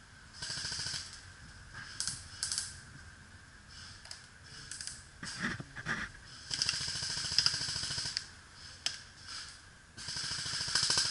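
Airsoft electric guns (AEGs) firing full-auto bursts, a rapid mechanical rattle. There are about four bursts, the longest one about a second and a half in the middle and another near the end.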